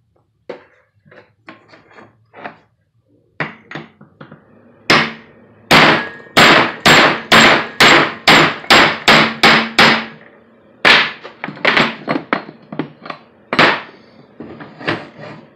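Hammer blows on the metal CV head of a Ford F-250 drive shaft, knocking a U-joint bearing cap out of its yoke. A few light taps come first, then a run of about a dozen hard blows at roughly two to three a second, then more uneven blows.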